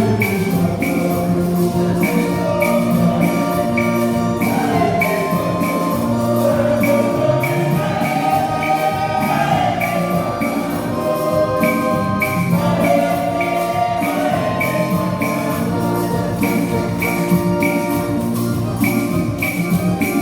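Music with a steady beat: held keyboard-like chords, regular percussion strikes, and a wavering melody line that comes and goes in the middle.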